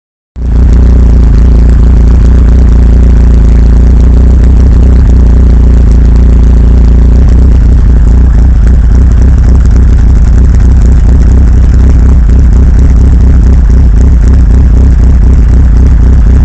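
Engine idling roughly, loud and steady with a strong low drone: the rough idle is the fault being shown.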